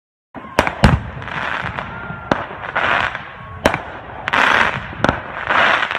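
Fireworks going off: five sharp bangs, each followed by a hissing, crackling burst about half a second long, starting about a third of a second in.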